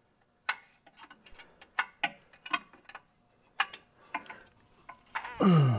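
A hand wrench or ratchet clicking in short irregular bursts while tightening loose torque converter bolts on the flex plate, a stopgap fix for a knock. Near the end a man gives a short groan that falls in pitch.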